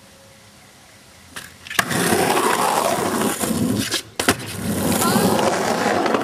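Skateboard wheels rolling over rough concrete. About four seconds in the rolling drops out as the board leaves the ground in a jump, then a sharp clack marks the landing and the wheels roll on.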